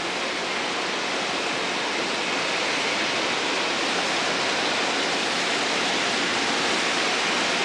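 Steady, even rush of water in a river navigation lock chamber.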